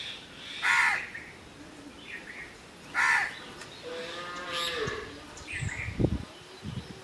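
A cow mooing once in a long call about four seconds in, with two short crow caws before it and a few low knocks near the end.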